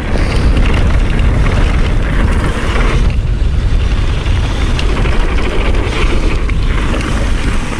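Wind rushing over the microphone of a mountain bike descending fast, with its tyres rolling over a dirt trail: a loud, steady rush.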